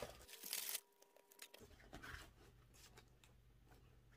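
Near silence with faint rustling as a canvas game mat is handled, including one brief louder rustle about half a second in.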